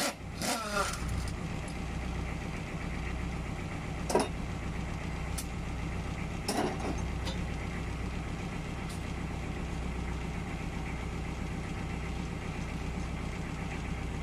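An engine idling steadily in the background. A sharp metallic clink of a hand tool comes about four seconds in, and another about six and a half seconds in.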